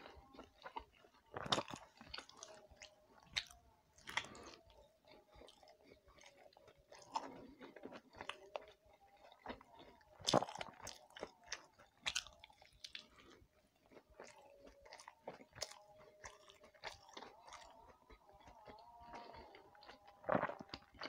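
Close-miked chewing and biting of a soft steamed rice-flour pitha (dumpling), with wet mouth sounds and lip smacks, and a few louder smacks at irregular moments.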